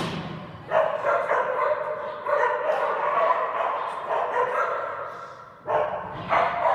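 A dog vocalising in long, drawn-out whines with a wavering pitch, a sharp click right at the start.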